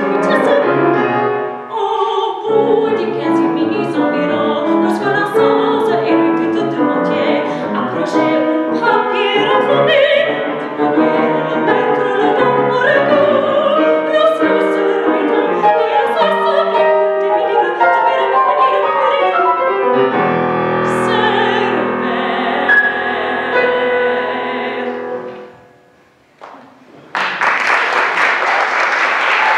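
A soprano sings in French with grand piano accompaniment. Low piano chords close the song, and after a brief pause the audience applauds near the end.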